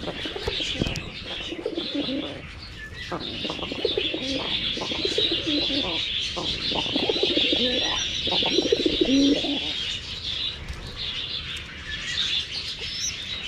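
Pigeons cooing in low, pulsing calls that stop about ten seconds in, over the continuous high chattering of a flock of budgerigars.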